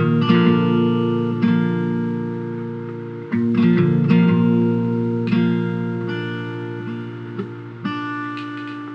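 Background music: guitar notes and chords plucked and left to ring, a new chord every second or so, the last one struck near the end and slowly dying away.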